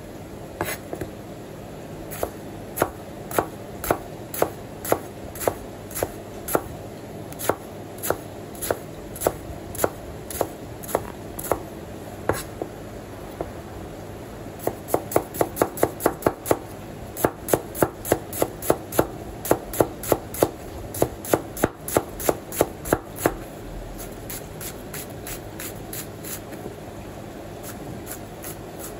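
Large kitchen knife chopping onion on a plastic cutting board, sharp knocks of the blade on the board at about two a second, speeding up to a quick run of four or five a second in the middle, then dying down near the end.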